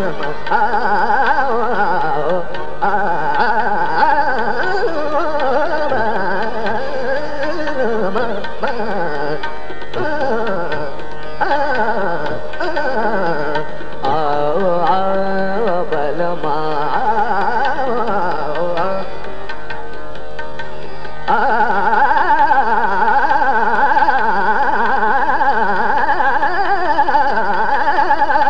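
Hindustani classical khayal in Raga Yaman: a male voice sings fast, wordless melodic runs (taans) that sweep quickly up and down over instrumental accompaniment. The music grows fuller and louder about three-quarters of the way in.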